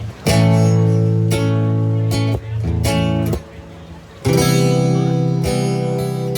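Acoustic guitar strumming and letting chords ring, with a softer passage past the middle and a new chord struck firmly about two-thirds of the way through.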